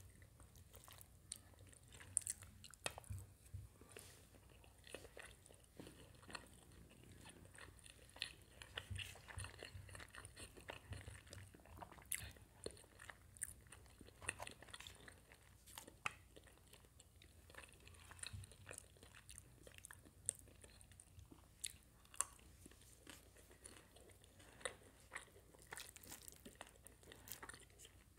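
A person chewing food close to the microphone with the mouth closed: irregular soft clicks and crunches.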